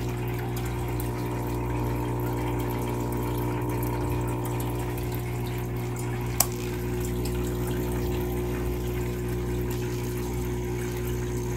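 SOBO SB-248A electromagnetic diaphragm aquarium air pump running with a steady hum. About halfway through there is a single click as its intensity setting is changed, and the hum shifts after it.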